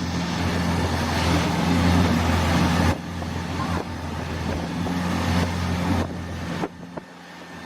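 Longtail boat's engine running steadily: a low, even drone over a rush of noise. The level drops abruptly about three seconds in and again near the end.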